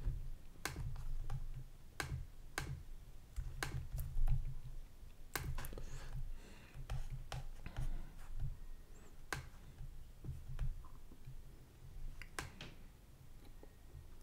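About a dozen sharp computer mouse clicks at irregular intervals, over a low rumble.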